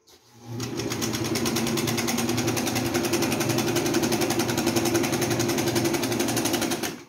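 Singer electric sewing machine stitching a seam through layered upholstery fabric, running at a steady fast pace in an even rapid rhythm of stitches. It picks up speed in the first second and stops abruptly near the end.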